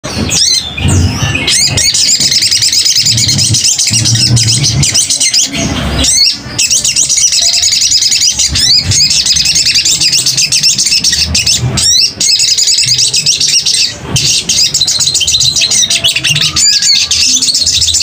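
Young caged sogon (sogok ontong) singing a rapid, high twittering song almost without pause, breaking off briefly a few times.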